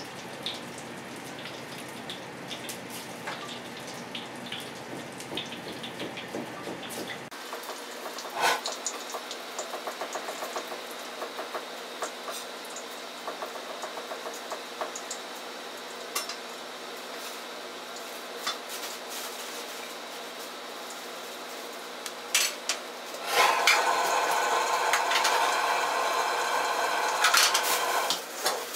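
Cornstarch-coated pork pieces slipping one by one into oil at about 180 °C in a carbon-steel wok, giving a light sizzle with small clicks of metal. About three-quarters of the way through it turns to a louder, steadier sizzle with metal scraping as a wire ladle works in the wok.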